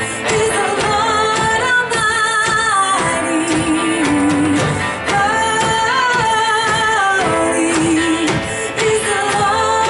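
Church worship band playing a worship song, with sung vocals held over a steady drum beat.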